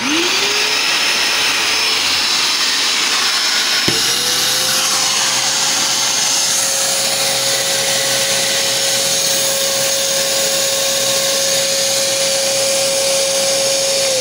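Kärcher NT3000 wet-and-dry vacuum cleaner switched on, its freshly repaired motor spinning up to a steady whine over a loud rush of air. About four seconds in the whine steps up in pitch and holds steady.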